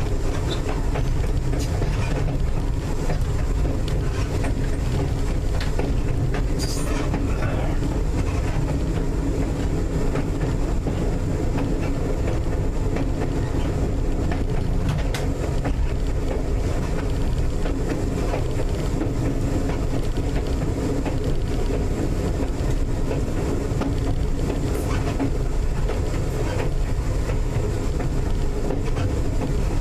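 North Shore Line 749, an electric interurban car, running along the track, heard from inside the car: a steady low rumble of wheels on rail, with scattered clicks as the wheels cross rail joints and switches.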